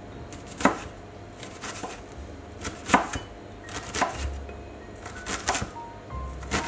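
Chef's knife dicing an onion on a wooden cutting board: about ten uneven knife strikes on the board, the sharpest about a second in and about three seconds in.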